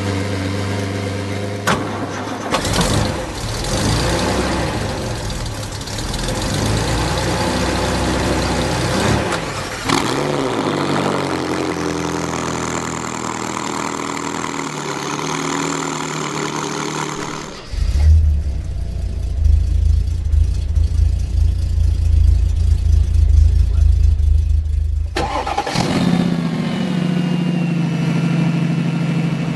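Cars with loud exhausts idling and revving, in a run of separate short clips; the engine note rises and falls with the throttle. About two thirds through there is a stretch of deep, low rumble.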